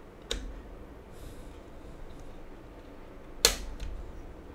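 A few small clicks and knocks of a 2.5-inch SSD being handled and fitted into a laptop's drive bay, the loudest one about three and a half seconds in.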